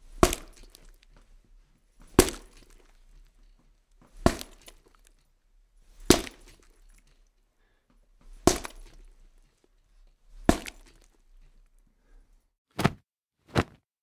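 Punch sound effect: six hard hits spaced about two seconds apart, each with a short tail. Near the end come two shorter, tighter hits in quicker succession.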